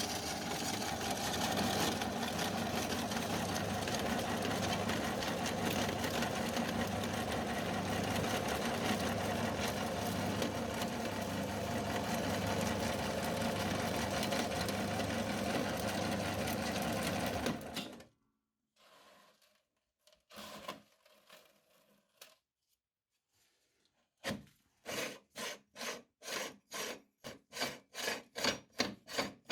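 Meat grinder running steadily and cutting off suddenly about eighteen seconds in. After a pause, a rhythmic rubbing or scraping begins, about two strokes a second.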